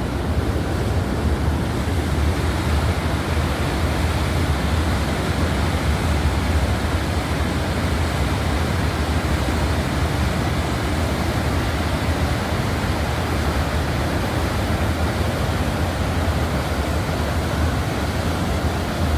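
Ohiopyle Falls on the Youghiogheny River running high: a loud, steady rush of water pouring over the falls, with a deep rumble underneath.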